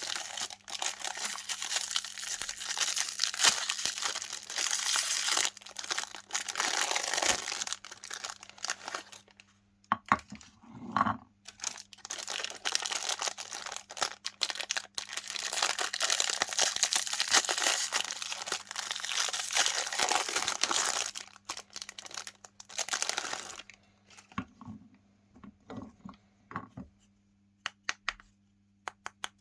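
Chocolate-iced cookies being crushed in a meat grinder: dense crackling and crunching in two long stretches, broken by a short pause about ten seconds in, then only a few scattered crackles near the end.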